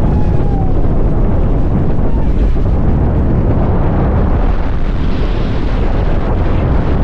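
Strong wind buffeting the microphone: a loud, steady rumble with no let-up.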